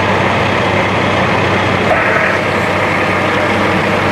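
Large emergency vehicle's engine idling steadily, a constant low hum under a noisy rumble.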